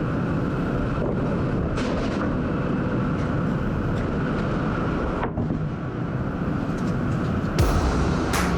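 Sawmill machinery running with a steady low din, broken by a few sharp knocks, the loudest near the end.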